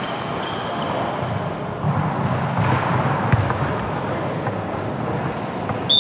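Basketball game in a large hall: the ball bouncing on the court and short high sneaker squeaks over a steady din of voices, with a sharp knock about three seconds in.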